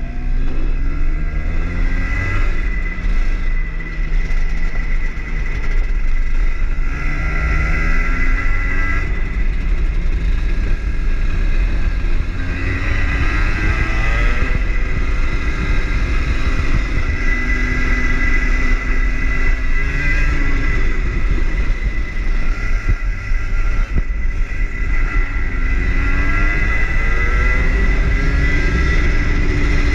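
Rotax two-stroke hire kart engine heard on board, its pitch climbing as it accelerates and dropping back as it lifts for corners, over and over. A steady high whine runs over the engine throughout.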